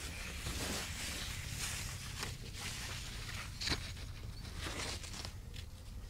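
Leaves rustling and crackling close to a phone's microphone, with irregular short crackles over a steady hiss and low hum, one sharper crackle a little past halfway.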